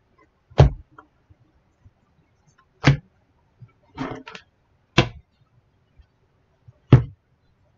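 Tarot cards laid down on a table: four sharp slaps about two seconds apart, with a short rustle of cards between the second and third.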